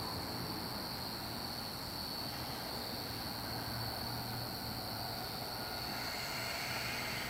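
Crickets calling in a steady, unbroken high trill. A faint hiss from the approaching NJ Transit Arrow III electric train rises under it near the end.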